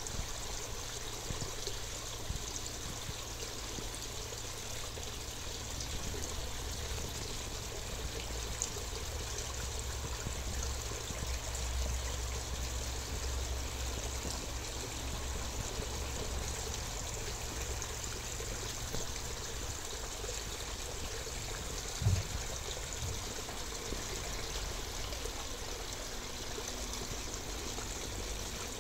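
Pond water trickling steadily, with a low rumble underneath that stops about two-thirds of the way through and a single low bump shortly after.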